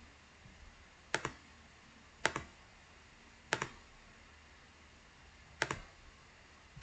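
Computer mouse button clicked four times, one to two seconds apart, each click a quick press-and-release pair.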